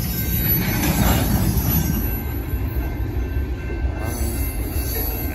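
Covered hopper cars of a BNSF sand train rolling steadily past: a heavy low rumble of steel wheels on rail, with a faint thin high wheel squeal over it.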